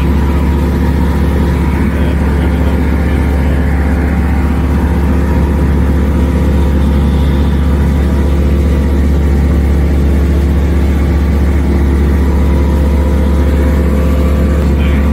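Light sport aircraft's Rotax piston engine and propeller droning steadily at climb power just after take-off, heard from inside the cockpit.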